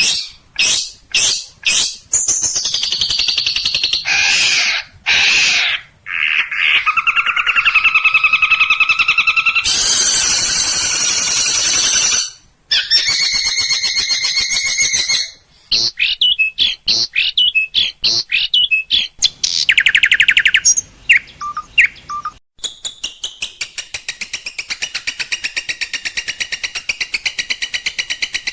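Songbird song spliced from several recordings for training a long-tailed shrike: sharp calls, long pitched trills and rapid note runs, with abrupt switches between clips. The last few seconds are a fast, steady run of repeated notes.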